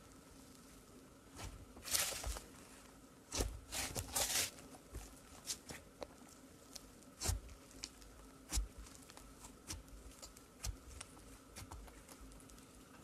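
Hands pressing, folding and poking thick pink slime: irregular wet clicks and pops, with denser crackling bursts about 2 and 4 seconds in.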